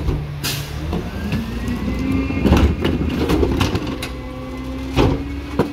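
Rear-loader garbage truck's engine revving up about a second in and holding at the higher speed, with a faint rising whine, as the cart tipper lifts and dumps a wheeled trash cart. Plastic carts bang and clatter several times.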